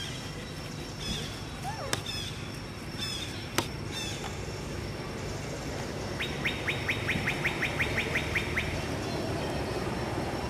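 Birds chirping: a few short chirps and sharp clicks in the first few seconds, then a quick even run of about a dozen sharp notes, roughly five a second, in the middle. A steady low hum runs underneath.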